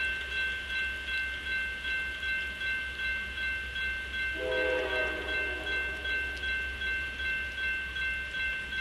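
Railroad crossing bell ringing steadily at about two strokes a second as the gates come down. About four seconds in, the horn of the approaching Norfolk Southern GE Dash 9 locomotive sounds a long blast over it.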